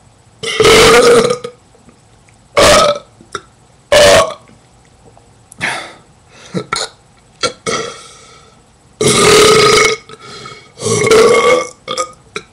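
A man burping loudly and repeatedly on purpose: about six separate burps, some short and some lasting about a second, with small clicks between them.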